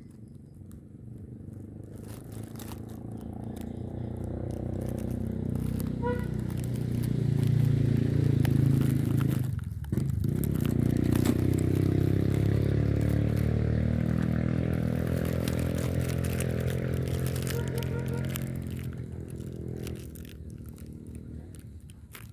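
A low engine drone that builds up over several seconds, drops out for a moment about ten seconds in, runs on steadily, then fades away. A few short high chirps sound over it, once near the middle and a quick run of them later.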